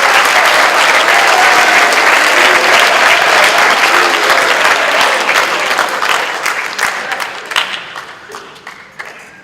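Audience applauding, loud at first and then thinning out and fading over the last few seconds, with a few voices faintly heard through the clapping early on.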